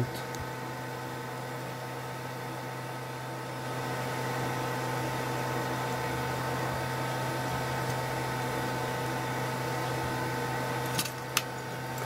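Steady electrical hum of a running machine, with a fainter high whine over it. It gets a little louder about four seconds in, and two light clicks come near the end.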